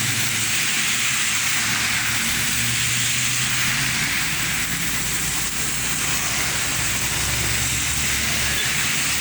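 Steady hiss of heavy rain, with motor traffic running past on the wet road: the low hum of vehicle engines rises and fades through it.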